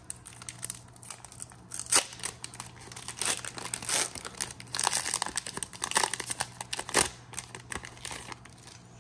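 Foil wrapper of a Pokémon Darkness Ablaze booster pack crinkling and tearing as it is opened by hand, in irregular crackles with several sharper rips.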